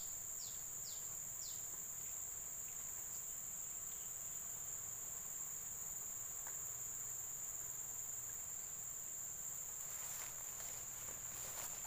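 Insects chirring in a steady high-pitched drone, with a few short falling calls near the start.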